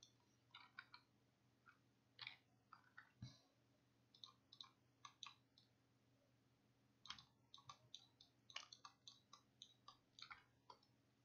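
Faint computer mouse and keyboard clicks, short and scattered, some in quick runs of several, over a faint steady low hum.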